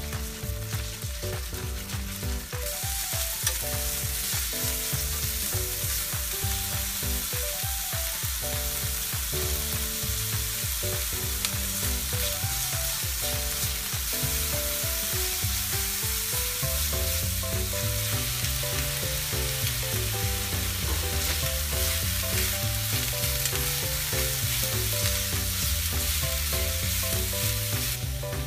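Pork, green pepper and cabbage sizzling in oil in a frying pan as they are stirred and tossed with chopsticks. The sizzle grows louder about two and a half seconds in and then holds steady, over background music.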